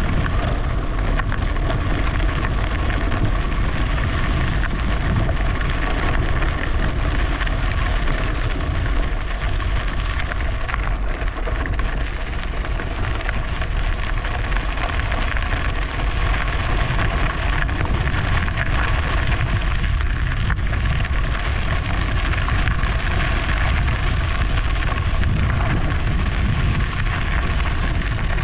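Wind rushing over the microphone and tyres rolling on the trail during an e-bike ride. It is a steady, loud noise with a few faint steady hums running through it.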